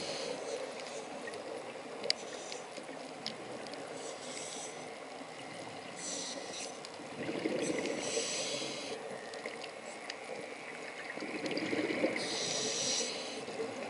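Scuba diver breathing underwater through a regulator: a hissing breath and a bubbling exhalation come in bursts about every five or six seconds, over a steady wash of water noise.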